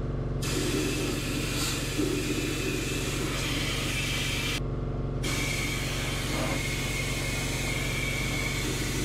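Compressed-air undercoating gun hissing as it sprays Fluid Film oil through a flexible wand with side holes into a boxed-in truck frame. The spray starts just after the beginning and pauses for about half a second near the middle, over a steady low machine hum.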